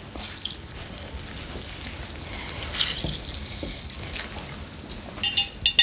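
Lemon squeezed by hand, its juice trickling and dripping onto a plate of food, with a quick cluster of light clicks near the end.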